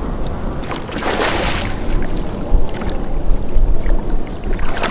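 A hooked roosterfish splashing and thrashing at the surface beside a boat, with a loud splash about a second in, over a steady low rumble.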